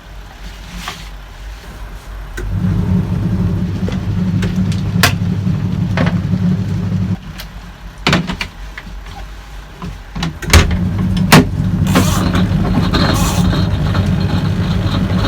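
Hisense twin tub washing machine's wash motor humming in spells of several seconds, stopping and starting again, with scattered clicks and knocks.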